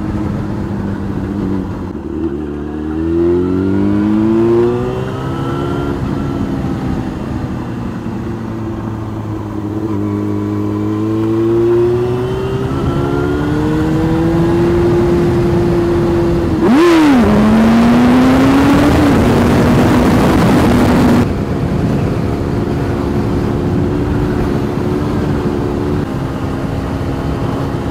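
Yamaha FZ6's inline-four engine with a LeoVince aftermarket exhaust, riding along: the engine note climbs through the revs several times as it accelerates through the gears, then holds a steady cruise. A loud rushing hiss covers it for about four seconds past the middle.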